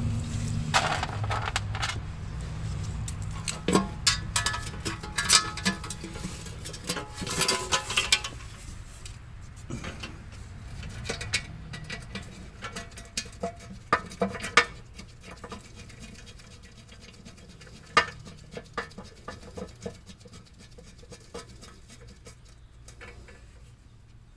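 Scattered metallic clinks, taps and scrapes of bolts and hand tools as the pan bolts go into a 4T65 automatic transmission's oil pan. The clicks come thick in the first several seconds and grow sparser after that.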